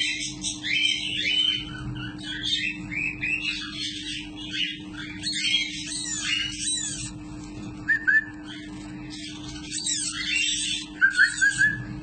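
Hand-fed parrot chick begging: rapid, thin chirps several times a second, with a few louder short squeaks about two-thirds of the way through and again near the end.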